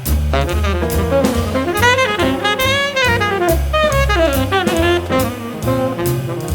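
Jazz music: a saxophone plays a wavering melody over a bass line and drums.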